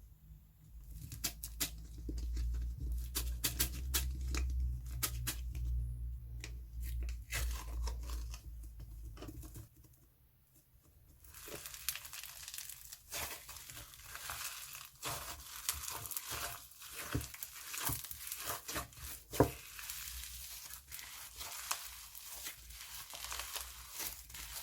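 Hands squeezing and stretching snow slime: irregular sticky clicks and pops with a low handling rumble at first, then, after a short lull, a denser crackling from about eleven seconds in.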